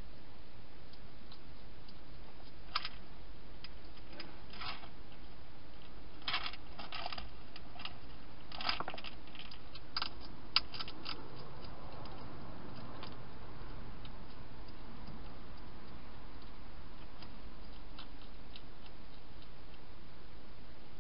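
A wild hedgehog eating inside a plastic feeding box: scattered sharp clicks and crunches, mostly in the first half, over a steady background hiss.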